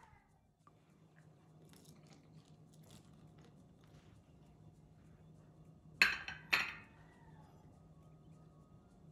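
Two sharp clinks about half a second apart, a white ceramic dish knocked down against the table or the mixing bowl, over a faint steady hum.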